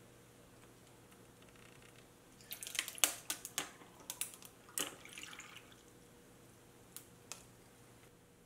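Tea poured over ice cubes in a glass measuring mug: a quick run of sharp clicks and cracks from the ice, with a short pour under them, a few seconds in, then two more single ice cracks near the end.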